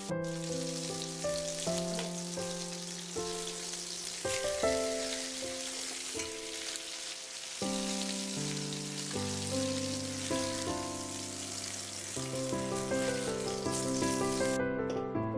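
Pork chops sizzling as they fry in hot oil in a frying pan, over instrumental background music. The sizzle cuts off about a second before the end.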